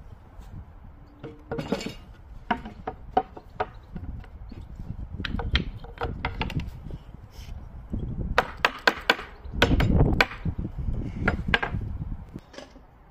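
Wooden knocks and clunks as a wide board is set upright into the notch of a wooden workbench accessory and fixed with wooden pegs and a wedge: scattered sharp taps in small groups, with the heaviest thuds about two thirds of the way through.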